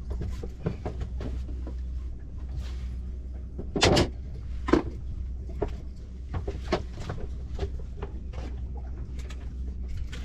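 Scattered knocks and clatter on a fishing boat, with a louder burst about four seconds in and another sharp knock just after, over a steady low hum.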